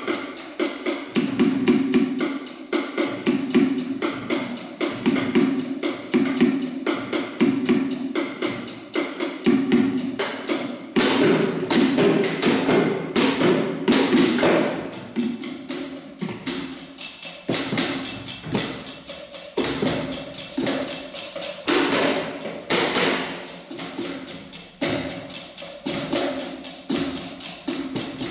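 Bucket drumming: drumsticks beating a fast, rhythmic pattern on upturned plastic buckets, many quick strokes a second with sharp stick clicks.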